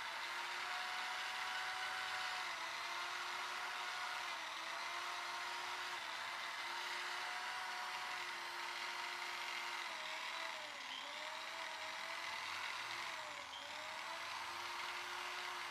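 Electric drill running with a cloth buffing pad, polishing a motorcycle engine block with Autosol. A steady motor whine whose pitch sags briefly about four times as the pad is pressed against the metal, then picks back up.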